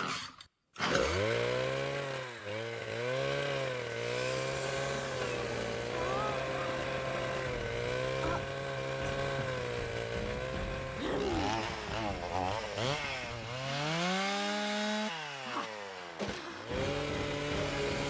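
Chainsaw engine running and revving, its note wavering up and down. About three-quarters of the way through it revs up sharply and falls away, breaks off briefly, then picks up again near the end.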